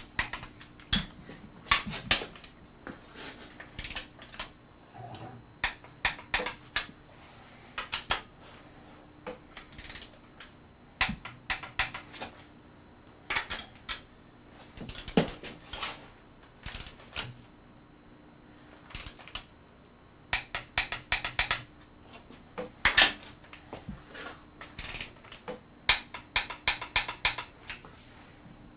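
Torque wrench ratcheting in short runs of sharp metallic clicks, with pauses between, as the nuts on an air-cooled VW Type 1 engine case are tightened.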